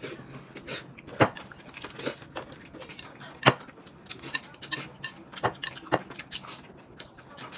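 Table-eating sounds: chopsticks clicking and scraping on porcelain plates while noodles are slurped and chewed. A scatter of short, sharp clinks, the loudest about three and a half seconds in.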